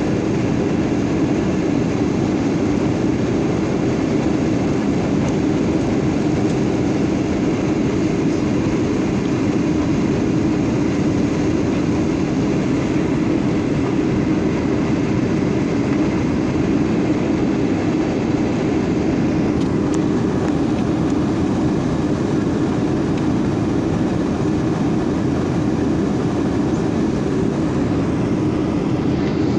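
Steady cabin noise of a Boeing 737-900 in flight: the drone of its CFM56-7B turbofan engines and the rush of air along the fuselage, unchanging throughout.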